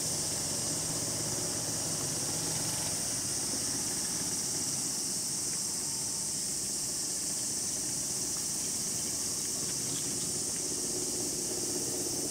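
Steady high-pitched drone of a summer cicada chorus, even and unbroken, with a faint low hum underneath.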